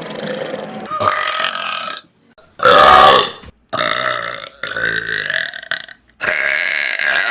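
A string of about five long, loud human burps, one after another with short breaks between them; the loudest comes about three seconds in.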